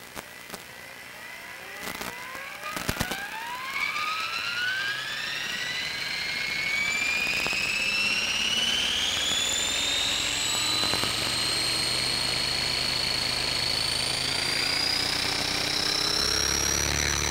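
Align T-Rex 500 electric RC helicopter spooling up on the ground: the brushless motor and rotor whine rises in pitch for several seconds as the power draw climbs, then levels off into a steady high whine near full head speed. A few sharp clicks come about two to three seconds in.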